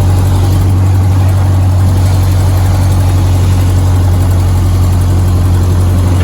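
Ford Model A four-cylinder engine running steadily, a constant low drone.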